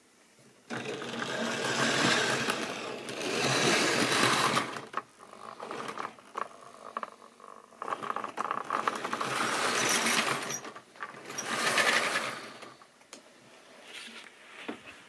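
Model railway train running on the track: the locomotive's small electric motor whirring and the wagons' wheels clattering over the rail joints. It starts suddenly about a second in and grows louder and fades twice.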